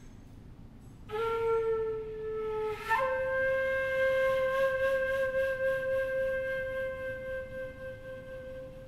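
A wind instrument with a flute-like tone playing two long held notes. The first comes in about a second in, with a breathy attack. A slightly higher note follows about three seconds in and is held for nearly six seconds, fading near the end.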